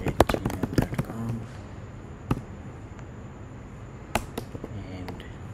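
Typing on a computer keyboard: a quick run of keystrokes over the first second, then a single keystroke a little after two seconds and a few more around four seconds in.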